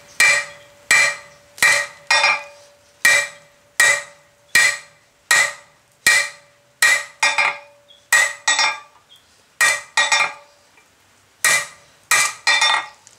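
Hand hammer striking red-hot steel bar on an anvil face, drawing out a tong rein: sharp ringing metallic blows, about one and a half a second and sometimes in quick pairs, with a short pause about ten seconds in.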